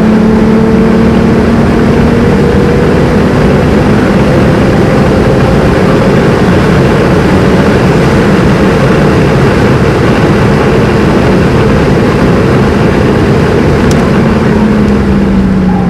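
Nissan Skyline R33 GTST's turbocharged RB25 straight-six, heard from inside the cabin, pulling in a high gear at Autobahn speed. Its note climbs slowly for several seconds, then drops near the end as the throttle comes off, over heavy wind and road noise.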